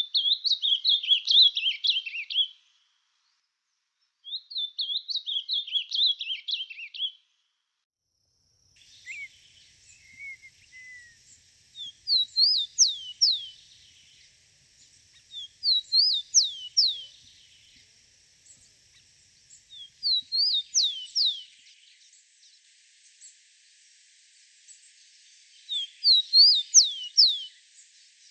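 Songbirds singing, from two different recordings played one after the other. First come two fast warbling phrases of about two to three seconds each. Then, over a steady hiss, another bird repeats a short phrase of a few quick sweeping whistled notes about every four seconds.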